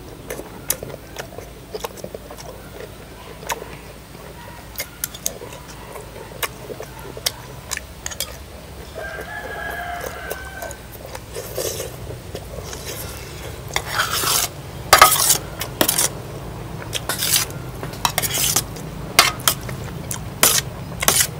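Clinking of dishes and utensils during a meal: a run of short clicks and knocks that gets louder and busier in the second half. A rooster crows once in the background about nine seconds in.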